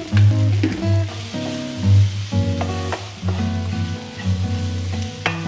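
Chopped onion, tomato, ginger, garlic and cashews sizzling in oil in a pan as they are sautéed and stirred, with a few sharp clicks of the spatula. Background music with steady, changing notes plays over it throughout.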